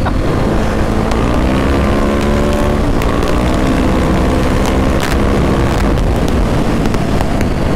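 Motorcycle engine running steadily under way, with wind rushing over the microphone and a few light clicks.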